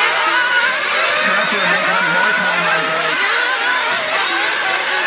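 Several nitro RC buggies' small two-stroke glow engines buzzing at high revs together. Their pitches rise and fall against each other as the cars accelerate and back off through the turns.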